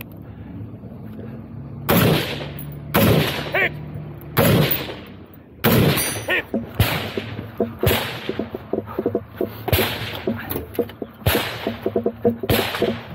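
Firearm shots fired one at a time on a practical-shooting stage: about nine loud, echoing shots spaced roughly one to two seconds apart, with light gear rattle between them.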